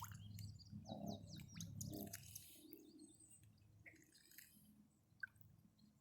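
Near silence with faint, scattered bird chirps, short falling notes clustered in the first couple of seconds, over a low hum that fades away.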